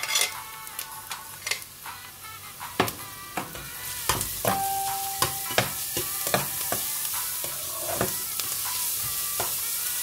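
Chopped garlic and onion sizzling in hot olive oil in a pot, while a metal spoon stirs them with scattered clicks and scrapes against the pot. About four seconds in, the sizzle grows louder and steadier.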